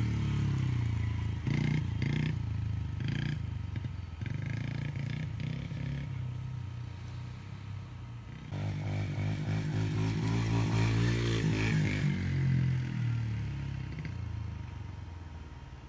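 Small child's dirt bike engine running, its note rising and falling with the throttle. It grows loud as the bike comes close and fades as it rides away near the end. A few brief knocks come in the first few seconds.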